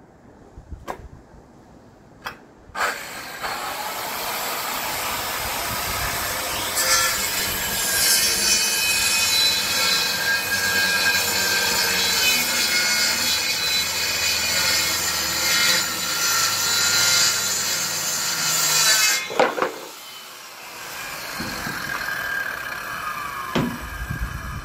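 Circular saw cutting through a sheet of plywood in one long pass of about sixteen seconds, its pitch falling as the blade runs down after the cut. A few light knocks come before the saw starts.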